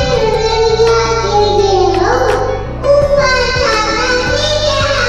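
A young girl singing a nursery rhyme into a handheld microphone over an instrumental backing track.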